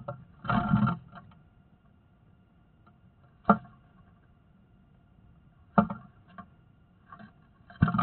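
Birds scuffling inside a wooden nest box: wing flutters, scratching and knocks against the walls close to the microphone. There is a burst of fluttering about half a second in, single sharp knocks near three and a half and six seconds, and a quick flurry near the end.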